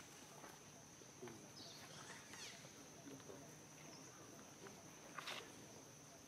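Near silence: faint outdoor ambience with a steady high-pitched insect drone and a few faint short chirps, and a single sharp click a little after five seconds in.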